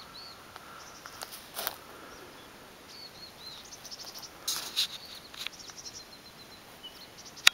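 Small birds chirping in short high calls over a steady outdoor hiss, with a couple of brief rustling noises and a sharp click near the end.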